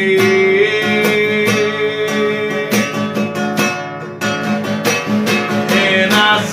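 Acoustic guitar strummed in a steady rhythm accompanying a worship song; a held sung note ends within the first second and the guitar carries on alone.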